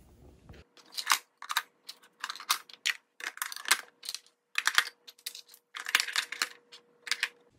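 Wooden toy cookware (pot, lid, plates, utensils) clacking against itself and a plastic storage bin as it is packed in: a run of light, irregular clicks and knocks.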